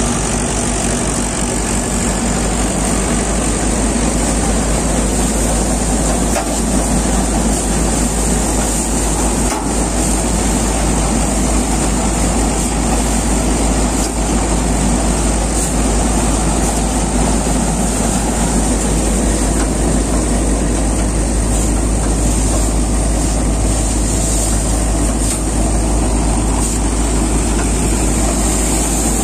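Mahindra 585 DI diesel tractor running steadily under load, driving a groundnut thresher through its PTO while peanut vines are fed into the thresher drum. The machinery makes a continuous loud rumble, with a few faint knocks.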